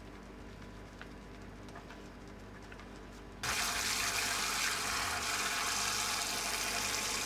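Gloved hands sloshing and squeezing a wet bird specimen in a tub of soapy water, faint and soft; a little over three seconds in, a tap spraying into the tub starts up suddenly with a loud, steady hiss of running water.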